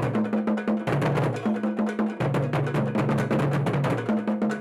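Music with a fast, busy percussion beat of clicking, wood-block-like strikes over a repeating bass line.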